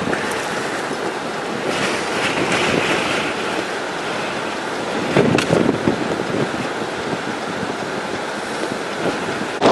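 Storm wind blowing hard across the microphone: a steady rushing noise with stronger gusts about two and five seconds in.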